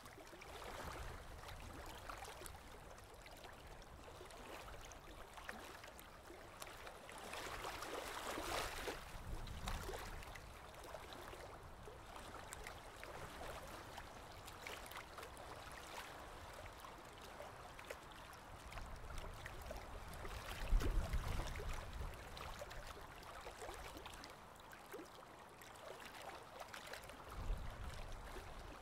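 Aquarium water gurgling and trickling steadily, with a low bump about two-thirds of the way through and another near the end.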